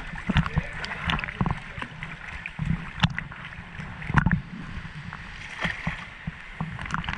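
River water lapping and splashing close to a camera held at the surface by someone floating downstream, with a low rumble and irregular small splashes and knocks against the housing, the biggest splash about four seconds in.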